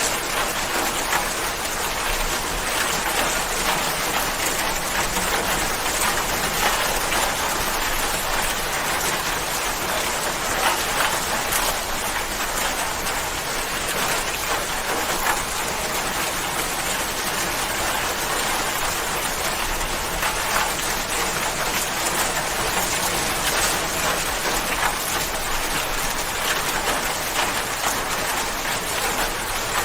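Steady rain falling, an even hiss of drops with fine scattered patters on a surface.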